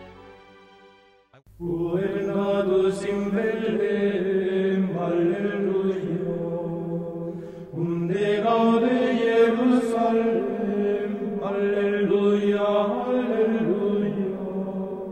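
Soundtrack music: a choir chanting in long held notes. It comes in about a second and a half in, after the earlier music fades away, with a short break near the middle.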